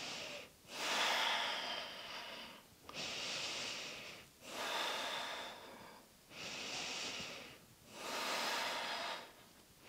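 A woman's slow, deep breathing, heard close on a clip-on microphone: about six long breaths in and out, each a soft rushing hiss of about a second and a half, with short pauses between them, as she holds a side plank.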